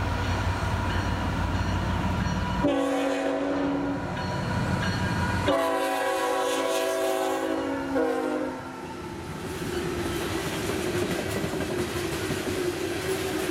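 A Norfolk Southern GE ET44AC diesel locomotive passes close by with its engine rumbling, then sounds its multi-chime air horn in a series of blasts from about three to nine seconds in, ending with a short blast. Coal hopper cars then roll past, wheels clicking over the rail joints.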